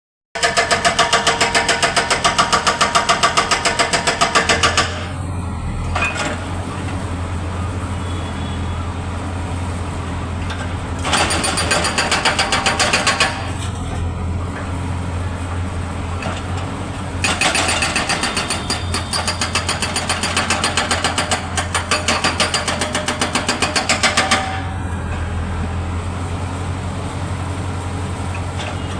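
Hydraulic breaker hammer on a Tata Hitachi EX70 excavator pounding in three spells of rapid, evenly spaced blows: near the start, around the middle, and for about seven seconds in the second half. The excavator's diesel engine runs steadily between the spells.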